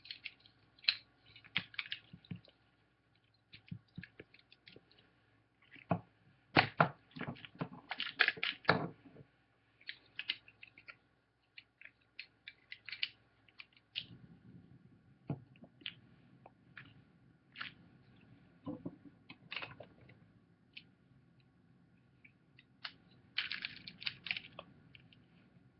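Plastic Rubik's Cube pieces clicking and snapping against each other as the 3x3 cube is reassembled by hand. The clicks come irregularly, in a busy run of louder clicks about six to nine seconds in and another cluster near the end.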